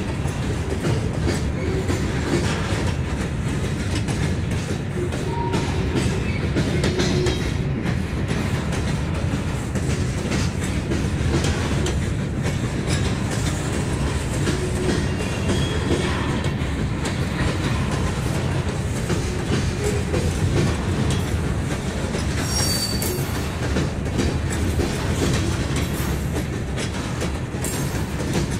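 Covered hopper freight cars rolling past on steel wheels: a steady rumble with the rhythmic clicking of wheels over rail joints.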